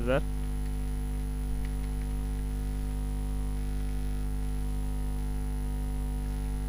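Steady electrical mains hum with a stack of overtones, picked up on the recording.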